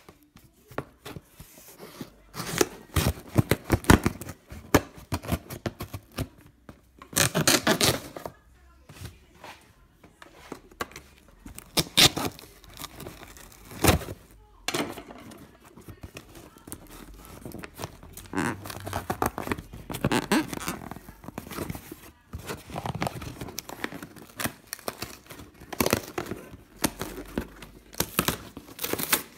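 Cardboard shipping box being handled and opened by hand: irregular scraping, rustling and tearing of cardboard and tape, with a few sharp knocks and a single loud click about halfway.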